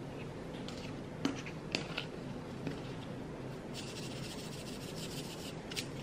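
A few small plastic clicks as the blue cap of a seasoning shaker is handled, then about two seconds of granules shaken out of it onto a bowl of rice, a fine rattling hiss.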